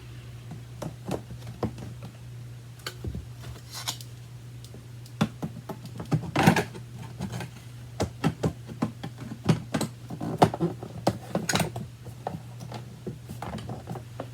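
Irregular clicks and knocks of plastic parts as a Kenmore Progressive upright vacuum is handled and its controls worked, over a steady low hum.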